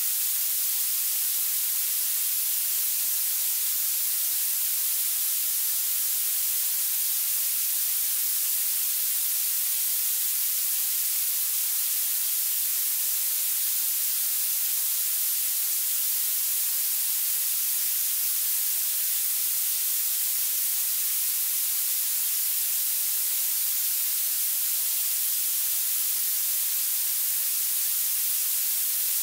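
Synthetic violet noise: a steady, unchanging high-pitched hiss, its energy rising strongly toward the treble with almost no bass.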